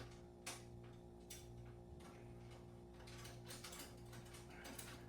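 Faint clicking of a ratchet wrench turning screws into a steel tool cart, in scattered strokes that come more often in the second half, over a steady low hum.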